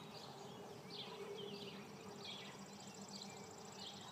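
Faint outdoor ambience: a bird chirping over and over in short calls every half second or so, over a low steady hum, with a thin high buzz joining in the second half.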